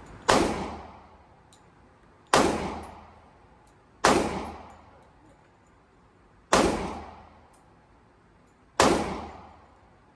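Handgun fired five times at an indoor range, shots spaced about two seconds apart, each followed by a reverberant echo, with faint ticks between shots.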